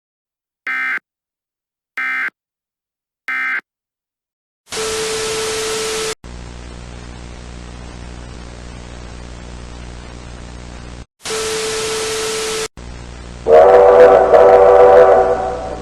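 Three short warbling data bursts of an Emergency Alert System end-of-message signal. Then two blocks of loud static, each with a steady tone in it, and a steady hum and hiss between them. About two seconds from the end comes a loud multi-note steam-locomotive whistle chord held for about two seconds.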